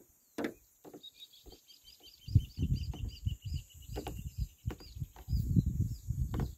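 A bird calling with a quick run of short repeated chirps, about five a second, stopping about five seconds in. Under it, low rumbling bumps close to the microphone, the loudest sound, with a few sharp clicks.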